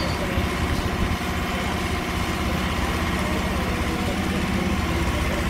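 An engine idling steadily, with a low, even running sound that does not change.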